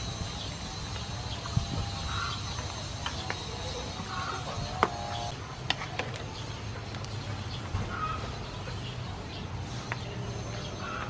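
Metal ladle stirring soup in an aluminium pot, clicking sharply against the pot a few times. Behind it, short bird calls every couple of seconds and a steady high insect buzz.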